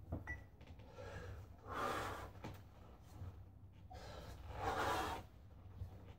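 A man breathing hard while lifting a kettlebell: two loud, forceful breaths about two and a half seconds apart, in time with the lifts, with a few faint clicks near the start.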